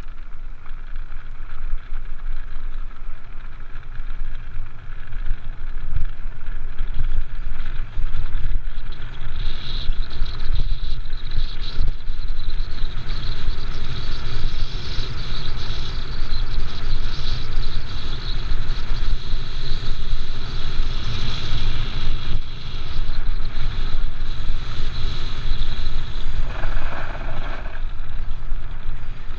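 Mountain cart rolling fast down a gravel track: a steady low rumble and crunch from the wheels on the gravel, mixed with wind, muffled by the camera's waterproof housing. A brief higher hiss comes in near the end.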